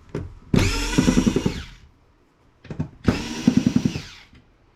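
Power screwdriver running in two bursts of about a second each, a motor whine backing out screws.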